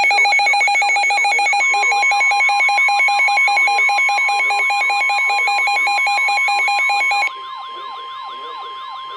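Emergency alert tones overlapping: a rapidly pulsing electronic alarm tone with repeating sweeping chirps, joined about two seconds in by a steady tone near 1 kHz, the NOAA Weather Radio warning alarm tone. The pulsing alarm cuts off about seven seconds in, leaving the steady tone and the chirps.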